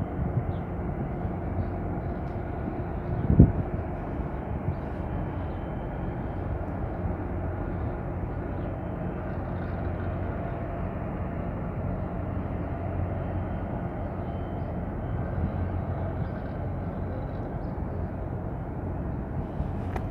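Outdoor harbour-side ambience: a steady low rumble with a faint steady hum underneath, and a single brief thump about three seconds in.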